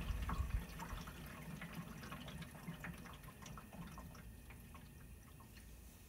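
Water dripping and trickling inside a Kenmore window air conditioner that has just been switched off: water left on the condenser fan blades, which pick it up from the drip pan to splash onto the coils, falls back into the standing water in the pan. Many small, irregular drips that thin out and grow fainter, while the fan's low hum dies away in the first second.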